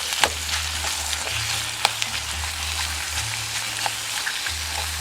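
Chopped onions sizzling steadily in a stainless steel Dutch oven over low heat as they soften, with a couple of sharp clicks in the first two seconds.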